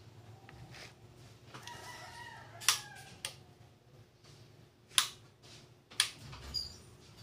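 A rooster crowing once in the background, a call of a little over a second starting about one and a half seconds in. Several sharp knocks follow, the loudest three at roughly even spacing in the second half.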